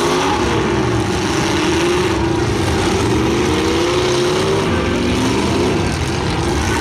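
Demolition derby cars' engines running and revving loudly, several at once, their pitch wavering up and down.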